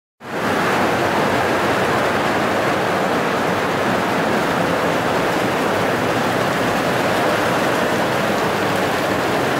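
Steady rain pouring down outside an open doorway, a dense, even hiss.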